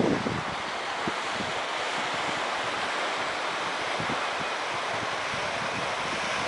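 Sea waves washing on a stony beach, a steady hiss, with wind buffeting the microphone.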